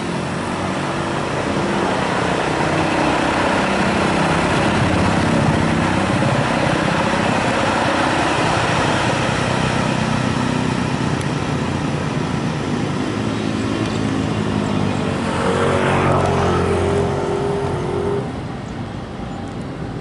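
KCIC400AF high-speed electric multiple unit passing at speed close by: a loud, steady rush of wheel and air noise over a low hum. A short pitched sound comes about three-quarters of the way through, and the noise falls off shortly before the end.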